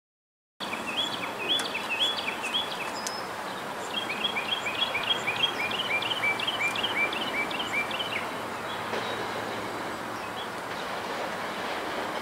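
A songbird singing quick runs of short, repeated chirps, once near the start and again for about four seconds from about four seconds in, over steady outdoor background noise. The sound begins after a brief silence.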